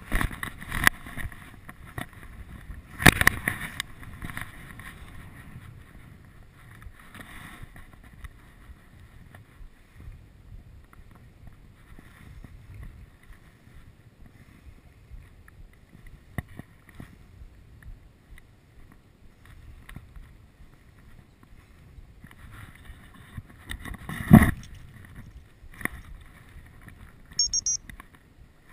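Gusty wind rumbling on an action camera's microphone on the lake bank, with loud knocks from the camera being handled about three seconds in and again near the end, and a brief high chirp just before the end.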